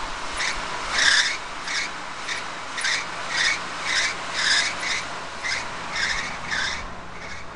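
Rhythmic rasping scrapes, about two a second, as a slippered foot pumps the gas pedal of a 1976 Oldsmobile Cutlass. The rasps ease off near the end.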